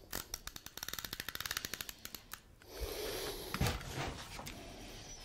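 Roll-on double-sided adhesive tape runner clicking rapidly as it is drawn along a paper edge. A little over halfway in, paper sheets rustle and slide as they are handled, with one soft thump.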